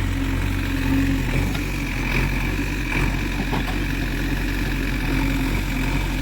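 Diesel engine of a JCB 3DX backhoe loader running steadily at low revs.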